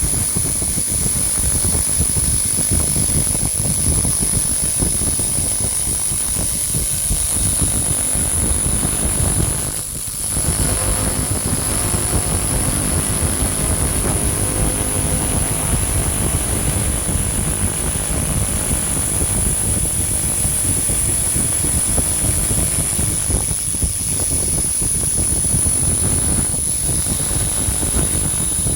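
300-watt pulsed laser cleaner running on a rusty old bell: a steady high-pitched whine over a loud, even rushing noise, which dips briefly about ten seconds in.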